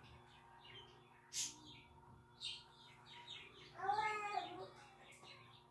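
A small bird chirping in short repeated bursts of quick falling notes. About four seconds in there is a brief, louder, higher-pitched vocal sound.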